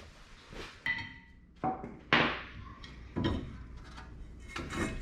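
Hammer blows on a rust-seized front brake rotor to knock it free of the hub: about five sharp metallic strikes, the one a little after two seconds the loudest, some with a brief ring.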